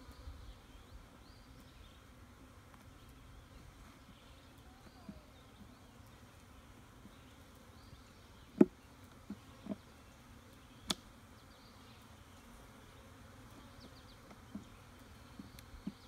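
A colony of honeybees humming steadily from an open nuc box. About halfway through come a few sharp clicks, which fit a metal hive tool working the wooden frames loose.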